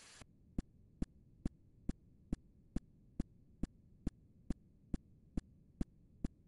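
Steady low thumping pulse, a little over two beats a second, like a heartbeat, from the soundtrack under the title slide. A faint hiss cuts off about a quarter second in, just before the pulse starts.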